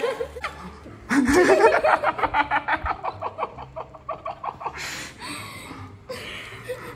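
People laughing hard. A burst of rapid, repeated 'ha-ha' pulses starts about a second in and lasts about three seconds, then trails off into quieter giggling.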